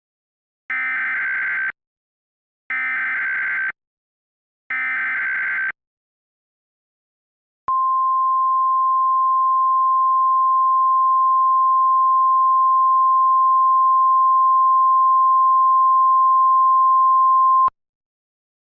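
Emergency Alert System weather-radio alert: three one-second bursts of screeching SAME header data, a second apart, then a steady 1050 Hz attention tone held for about ten seconds before it cuts off. This signals a warning message about to be read.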